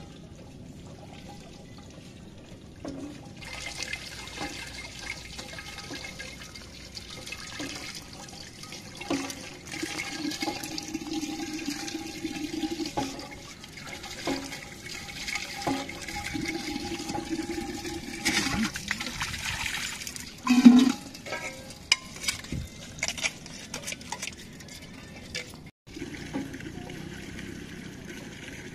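Water gushing from a hand pump's spout and splashing over vegetables being rinsed by hand and onto the concrete below, with scattered knocks and one loud knock about twenty seconds in. The water sound cuts off suddenly near the end, giving way to a quieter steady background.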